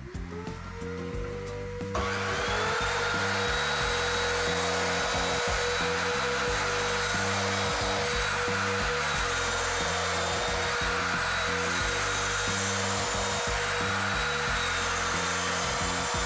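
Sliding compound miter saw: the motor spins up with a rising whine, then about two seconds in the blade cuts into a wooden panel, a loud steady noise that holds as the saw is drawn through the cut. Background music plays underneath.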